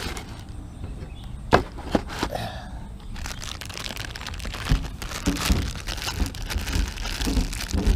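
Metal mirror relocation brackets being handled and held up to check the fit: two sharp clicks early, then a rustle and several dull knocks.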